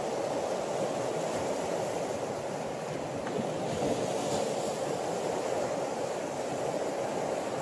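Sea surf washing steadily over a rocky shoreline, an even rushing sound with no distinct single wave breaks.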